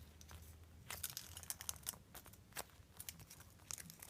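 Faint, irregular rustling and crinkling with small clicks and taps as a foam squishy toy is handled and squeezed.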